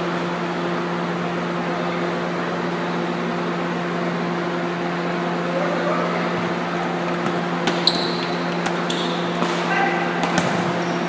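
Steady hum in an indoor futsal hall during play. A few sharp knocks and short squeaks come in the last few seconds, with faint shouts near the end.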